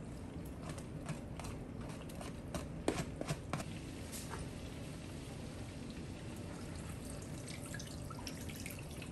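Minced garlic scraped off a plate into hot melted butter in a skillet, with scattered crackles and pops and a louder cluster of clicks about three seconds in. Near the end liquid is poured into the pan from a glass measuring cup, with a few light ticks and drips.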